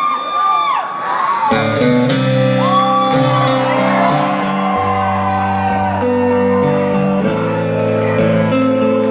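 Crowd whooping and cheering, then about a second and a half in live guitar chords ring out and carry on, with voices over them.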